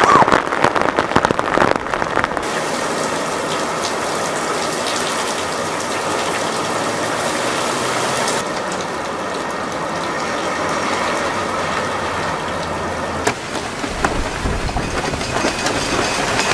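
Heavy rain pouring down on a paved street, a dense steady hiss of downpour that shifts abruptly in tone a couple of times. A low rumble joins near the end.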